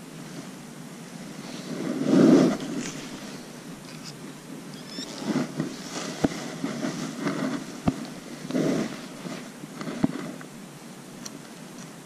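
Handling noise on the camera microphone: several rustling bursts and a few sharp clicks over a steady hiss. The loudest rustle comes about two seconds in.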